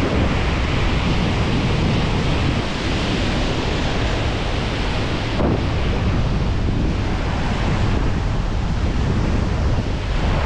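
Ocean surf washing and breaking over coastal rocks in a steady rush of white water, with wind buffeting the microphone.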